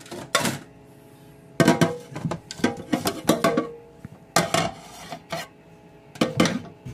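Metal pot clattering and ringing in a few bursts as hands squeeze and knead wet chopped banana blossom inside it. The hands are wringing the vinegar-and-salt soak out of the blossom.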